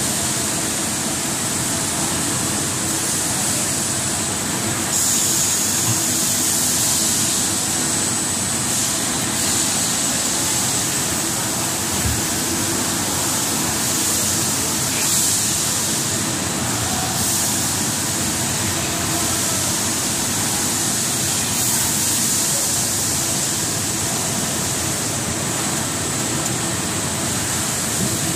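Rubber profile extrusion and vulcanization machinery running: a steady mechanical hum under a strong, even hiss, with the hiss stepping up and down in level every few seconds.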